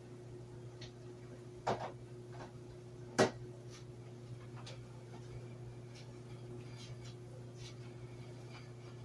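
Butter melting in a hot nonstick frying pan, giving faint scattered crackles and ticks over a steady low hum. Two louder sharp clicks stand out, about a second and a half apart near the start.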